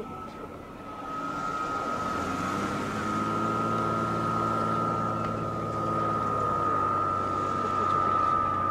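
Piper PA-46 single-engine propeller plane approaching low, its engine and propeller drone coming in about two seconds in and growing louder, with a steady high-pitched whine throughout.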